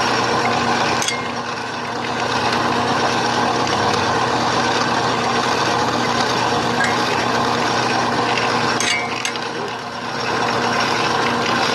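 A machine tool running steadily with a hum while a boring bar takes a finishing pass through a hole in a steel block. It eases off briefly twice, with a click about a second in and a couple of clicks near nine seconds.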